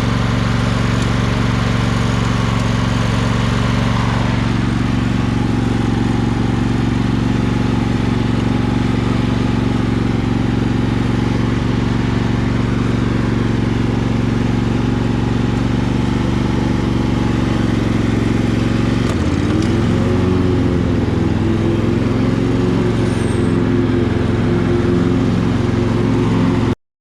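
Old Sears Craftsman lawn tractor's engine running steadily at speed. About two-thirds of the way through its note dips briefly under load and comes back slightly wavering, and the sound cuts off suddenly near the end.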